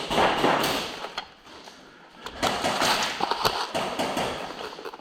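Rustling and scuffing noise in two stretches, with scattered sharp clicks and knocks at an irregular pace.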